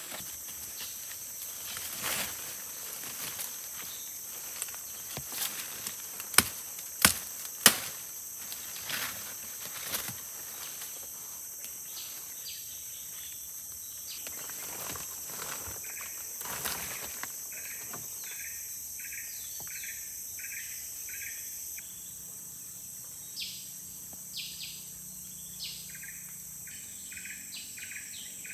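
Steady high-pitched chorus of forest insects, with scattered rustling and knocks: the loudest is a quick run of three sharp knocks about a quarter of the way in. In the last third a short chirping call repeats about twice a second.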